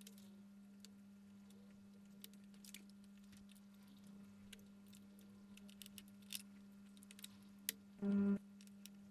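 Faint scattered clicks and taps of cable connectors and small computer parts being handled and unplugged inside an opened all-in-one PC, over a steady low hum. About eight seconds in, a loud, short pitched tone sounds for under half a second.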